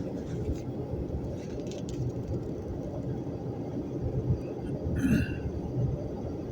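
Storm wind buffeting the microphone: a low rumble that swells and eases in gusts. About five seconds in there is a brief, higher-pitched sound.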